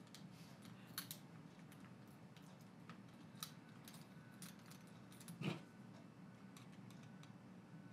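Faint clicks and small knocks of metal and plastic parts as a battery pack is fitted onto a metal bracket and handled, with one louder knock about five and a half seconds in.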